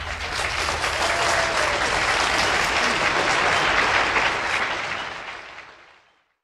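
Live audience applauding after a song. The clapping fades out and stops just before the end.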